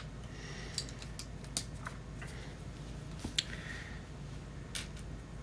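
Plastic LEGO plates being handled and fitted together: a handful of light, sharp clicks and taps spread across a few seconds.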